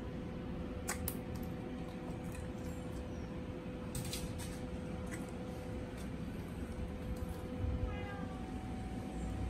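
A house cat meows: a short call falling in pitch near the end.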